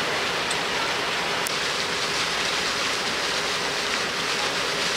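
Steady rushing of water along the hull of a passenger launch moving at speed.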